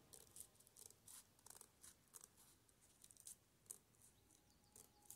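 Faint snipping of scissors cutting paper, an irregular series of small quick cuts as a leaf shape is trimmed.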